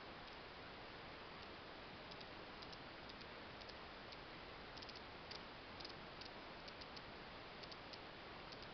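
Soft, irregular small clicks from the crown of a Chopard Mille Miglia GMT chronograph (Valjoux 7754 automatic movement) being turned by the fingers. They come singly and in quick pairs over a steady hiss.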